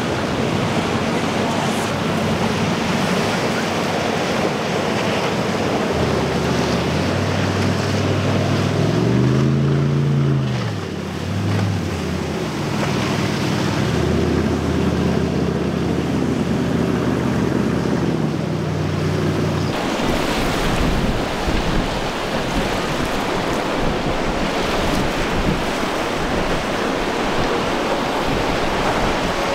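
Caravelle Interceptor powerboat's engine running under a constant wash of surf and wind noise. A few seconds in the engine note comes up, and its pitch rises and falls once as it revs through the waves. About two-thirds of the way through the engine drops out, leaving only surf and wind.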